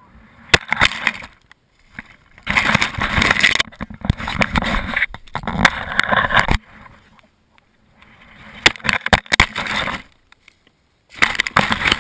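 Wind noise on a GoPro camera's microphone as it is tossed back and forth through the air, in several bursts a second or two long, with sharp knocks and thumps as it is caught and handled.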